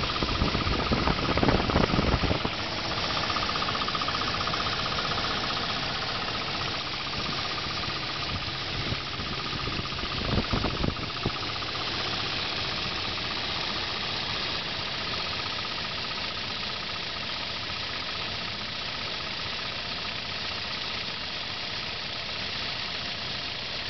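Volvo 230FT turbocharged 2.3-litre four-cylinder engine idling steadily with a knock, louder for a stretch about a second in and again briefly around ten seconds in. The owner cannot place the knock and suspects the bell housing/torque converter area.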